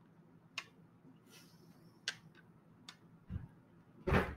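Dice being set down one at a time on a wooden tabletop: a few separate sharp clicks, then a dull knock and a louder thump near the end.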